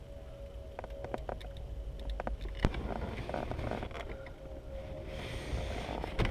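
Hands handling a plastic brake light switch and its bracket under a car's dashboard: scattered small clicks and rustling, with one sharper click about two and a half seconds in, over a steady low rumble.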